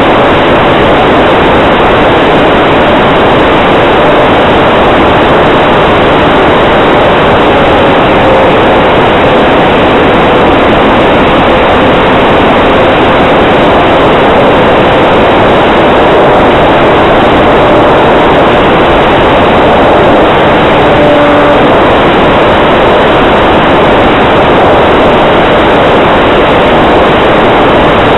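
Onboard sound of an E-flite P-47D Thunderbolt RC model in flight: a loud, steady rush of propeller wash and wind over the camera's microphone, with a faint motor note that drifts slightly in pitch.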